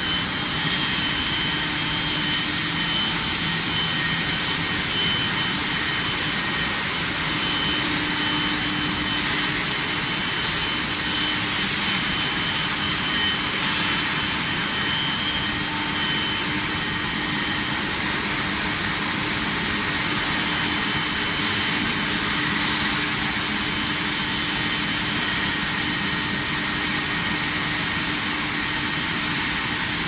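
Steel-bar induction hardening and tempering line running: a steady, even rushing noise with a few thin steady whining tones over it.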